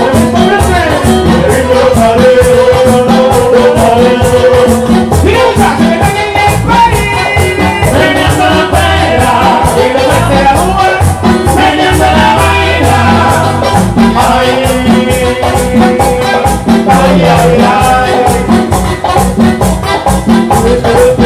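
Live Latin band music: singing with shifting pitch over a fast, steady percussion beat and bass.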